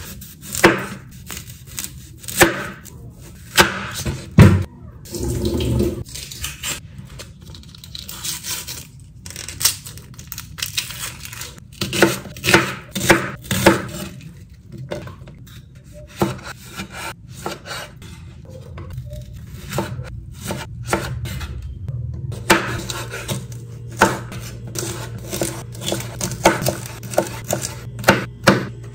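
Chef's knife cutting onion and green beans on a bamboo cutting board: irregular sharp knocks of the blade on the wood, some in quick runs.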